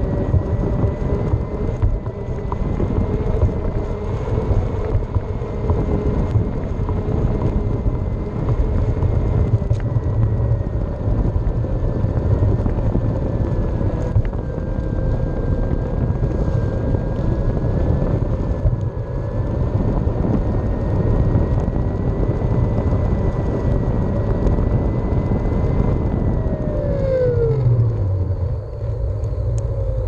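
Skateboard rolling over a concrete path: a steady low rumble from the wheels, with a faint whine riding on top. Near the end the whine slides down in pitch and the rumble eases as the board slows.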